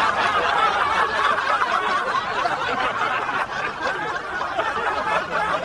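Sustained laughter, chuckling and snickering without words, continuing unbroken.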